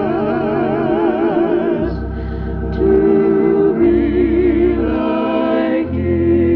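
Organ music: slow sustained chords with a wavering vibrato over a bass line that changes note about every second.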